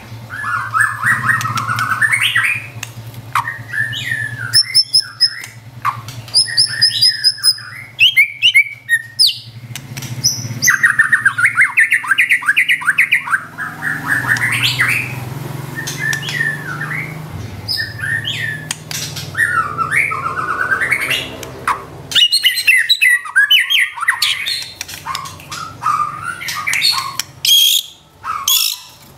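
White-rumped shama singing a long, varied song: rapid whistled phrases, sliding notes and trills, broken by harsh rattling notes. A low steady hum lies under it until about three-quarters of the way through.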